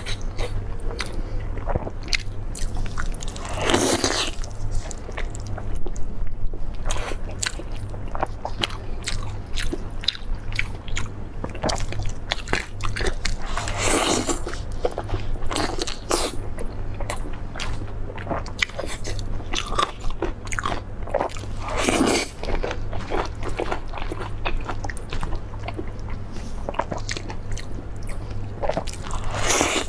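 Close-miked chewing and crunching of crispy deep-fried squirrel-shaped mandarin fish, with many small crackling clicks and louder crunchy bites about every eight to ten seconds.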